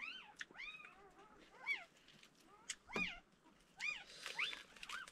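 Newborn puppies whimpering and squealing: about ten short, high cries that rise and fall in pitch, some close together.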